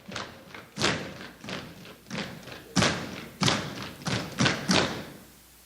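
Step team stepping: about ten sharp percussive stomps and hand hits in an uneven rhythm, stopping about five seconds in.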